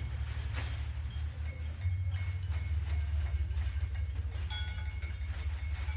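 A steady low electronic drone under scattered light clinking taps on bowls, each tap leaving a short high ring. The drone grows louder about two seconds in.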